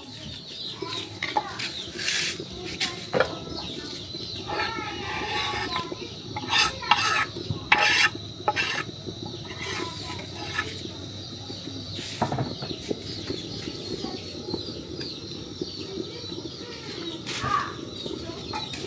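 Knife and wooden chopping board knocking and scraping as chopped bitter leaf is pushed off the board into a pot of soup, with a cluster of sharp knocks about seven seconds in. Short chirping calls come about five seconds in, over a steady faint high tone.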